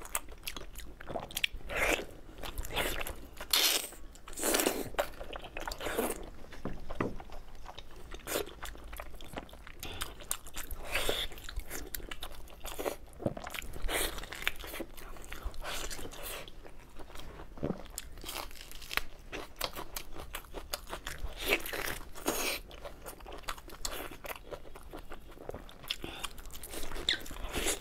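Close-up eating sounds of someone biting into and chewing a pork knuckle: a dense, irregular run of short wet mouth clicks and bites.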